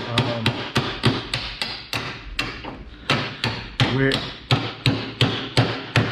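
Small ball-peen hammer striking metal in a steady run, about three blows a second with a brief pause midway, driving a door hinge pin home.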